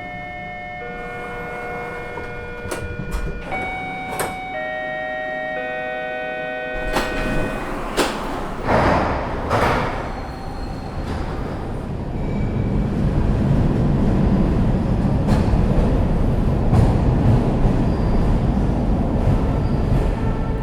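Subway train: a door chime of several steady electronic tones, then the doors sliding shut with hisses of air about seven to ten seconds in. From about twelve seconds in, a low rumble builds as the train pulls away.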